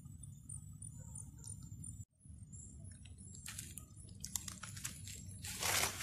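Night insects trilling high in a steady pulsing pattern, cut off suddenly about two seconds in. Then crackling and rustling of dry leaves and twigs with scattered sharp clicks, swelling to a loud rustle near the end.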